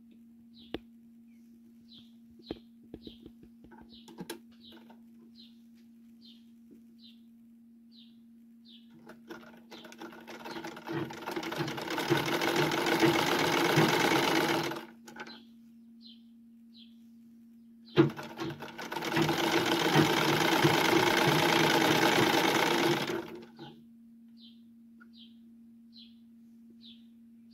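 Old black Gloria sewing machine stitching a sleeve hem in two runs of about five seconds each. The first run builds up speed from about nine seconds in. Between the runs a bird chirps faintly over and over, over a steady low hum.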